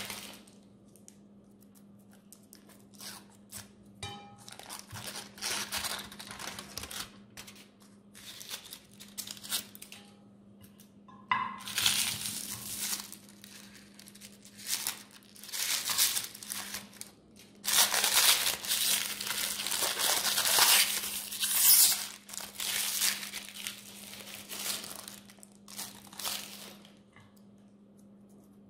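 Thin chocolate foil and cellophane wrappers crinkling and tearing as chocolate umbrellas are unwrapped by hand, in irregular bursts with short pauses; the longest, loudest stretch of rustling comes about two-thirds of the way in. A faint steady hum runs underneath.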